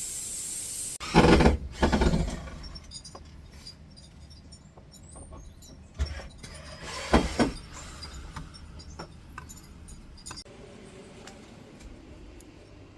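A steady gas hiss cuts off sharply about a second in. It is followed by knocks and rattles of metal parts and tools being handled on a refrigeration unit, loudest in two clusters, with scattered clicks between.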